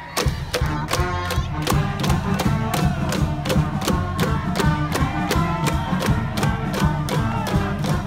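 Cheering music from the stands: a drum beating steadily about four times a second under a pitched melody line.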